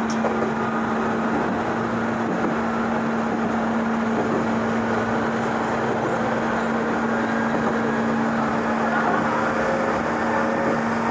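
Onboard running noise of a Meitetsu 6000 series resistance-control electric train: a steady rumble of wheels on rail with a constant electrical hum, and a faint tone rising slowly in the second half.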